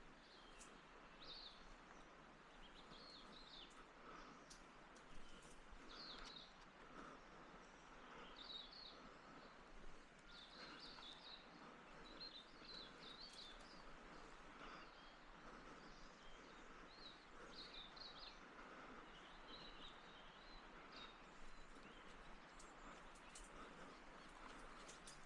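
Near silence in the bush with faint, scattered bird chirps repeating every second or so over a low background hiss.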